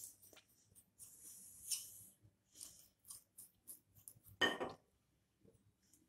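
Knife blade cutting through a sheet of rolled shakarpara dough and scraping on the kitchen countertop: a series of short, quiet scrapes, with one louder knock about four and a half seconds in.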